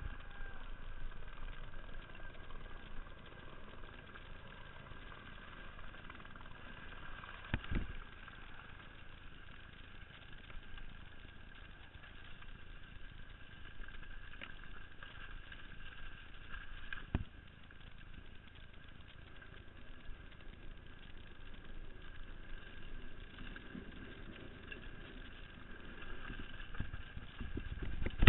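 Steady rush of wind and tyre noise from a mountain bike descending a loose, rocky gravel trail, picked up by a camera on the rider, with two sharp knocks of the bike over rocks, about a quarter and two thirds of the way through.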